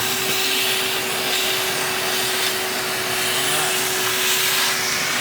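Shop vac running steadily with a constant motor whine, vacuuming the insides out of opened bay scallops as they are cleaned.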